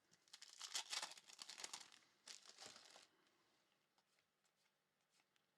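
Faint crinkling and tearing of a trading-card pack wrapper being ripped open, lasting about three seconds.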